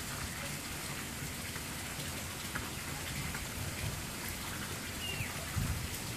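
Steady, even outdoor hiss of background noise with no distinct source. A faint short chirp comes about five seconds in, and a soft low bump follows just after.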